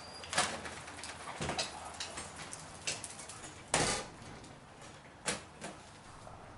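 A few scattered light knocks and clicks about a second apart, the loudest one near four seconds in.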